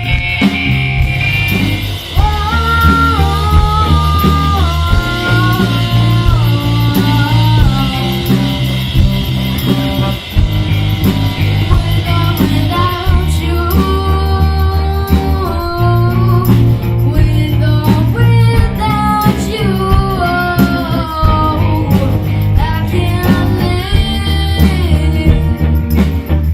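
A young rock band playing live: electric guitar, bass and drums, with a sung melody line over a steady bass pulse.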